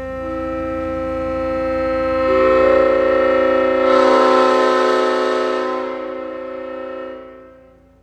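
Leslie Supertyphon S5T five-chime locomotive air horn with bronze bells, sounded in a stone tunnel: a sustained chord that swells as more notes join in over the first couple of seconds, is loudest in the middle, then tapers away and stops shortly before the end.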